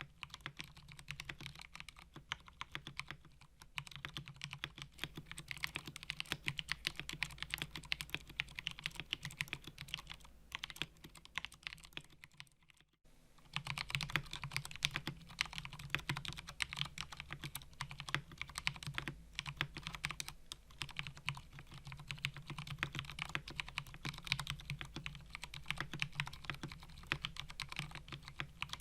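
Typing on a mechanical keyboard with Cherry MX switches: a fast, continuous stream of key clicks, with a short pause about 13 seconds in before the typing resumes.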